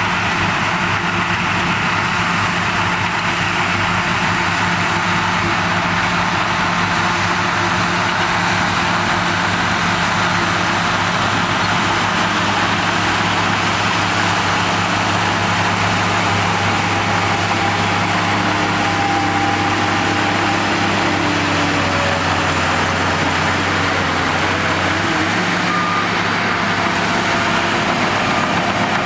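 Shantui DH17 crawler bulldozer's diesel engine running steadily under work, with a change in its low note about 25 seconds in.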